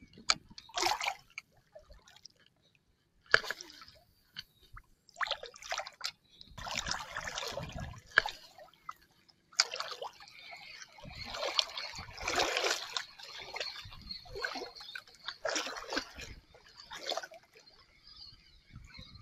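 Shallow water sloshing and splashing in irregular bursts around a wading angler, with a few sharp clicks.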